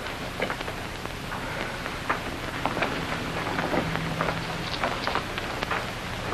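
Crackle and hiss of an old film soundtrack: a steady hiss dotted with many irregular small clicks and pops.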